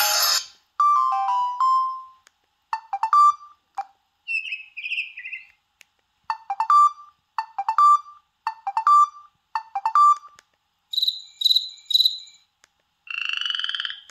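Samsung Reclaim phone playing preloaded ringtone sounds: a string of short electronic tones and chirps with gaps between them. Five matching tones about a second apart sit in the middle, followed by three quick high chirps and then a buzzing trill near the end.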